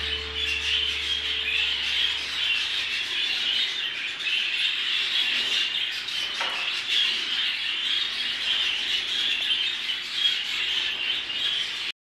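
A roomful of budgerigars chattering and chirping together in a steady, dense twitter.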